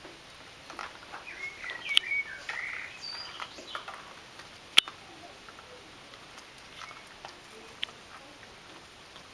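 Petit Brabançon puppies at play over a rubber toy: a short run of high, wavering squeaks about two seconds in, sharp taps and clicks (the loudest a little before halfway), and light scuffling on paving stones.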